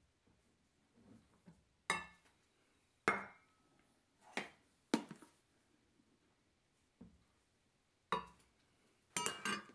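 Sharp clinks and knocks of a metal measuring cup and utensils against a glass mixing bowl and countertop, several separate strikes, some with a brief metallic ring, and a quick cluster of knocks near the end.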